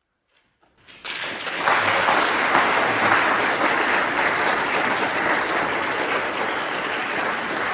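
Crowd of guests applauding, breaking out suddenly about a second in after near silence and continuing steadily and loudly.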